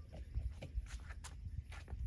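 Faint footsteps and light taps on a tennis court, several soft steps spread through the two seconds between racket shots.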